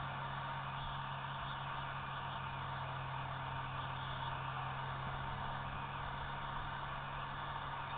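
Steady hiss with a constant low hum, unchanging throughout, with no distinct sounds on top.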